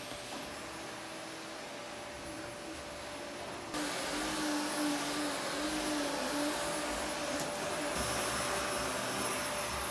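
Canister vacuum cleaner running steadily, a motor whine over a steady rush of air. It gets suddenly louder about four seconds in.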